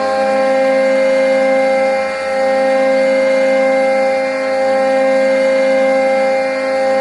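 Hockey arena goal horn sounding one long, steady blast of several pitches at once, dipping slightly in level about every two seconds.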